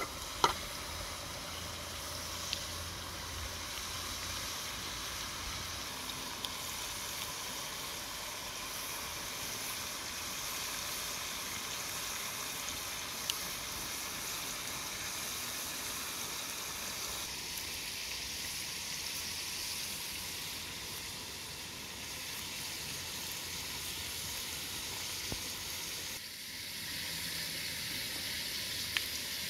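Duck pieces frying in a lidded wok over a wood fire: a steady sizzling hiss, with a sharp metal clank about half a second in as the lid goes on.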